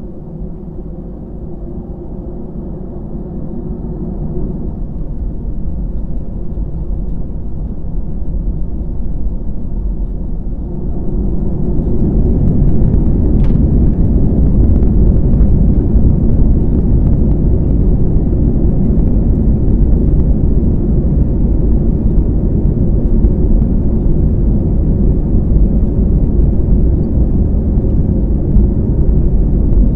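Cabin sound of an Airbus A319-112's CFM56 turbofan engines, heard from a window seat by the wing. The engines run at a rising, moderate power at first, then spool up to takeoff thrust about eleven seconds in. After that comes a loud, steady rumble as the takeoff roll begins.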